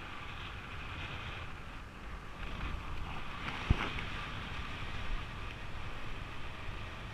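Wind rushing over the microphone of a camera worn by a paraglider pilot in flight, a steady noise. One sharp knock about halfway through.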